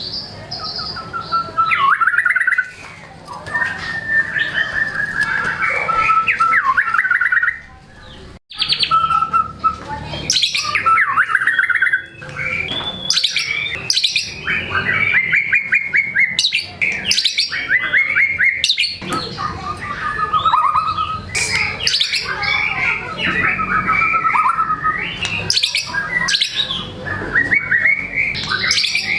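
White-rumped shama (murai batu) singing in full voice: a long, unbroken run of varied phrases, with rapid trills, fast chattering note series and whistles following one another. It is showing off its repertoire ('bongkar materi'), with a short break about eight seconds in.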